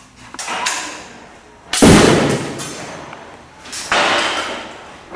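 A series of sudden, loud bangs, each trailing off over about a second, with the loudest about two seconds in.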